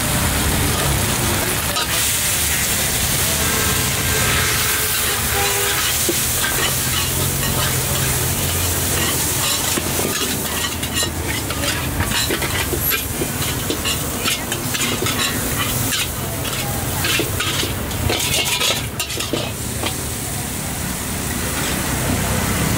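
Food stir-frying in a large steel wok: a steady sizzle, with a metal spatula scraping and clanking against the pan, most often in the second half.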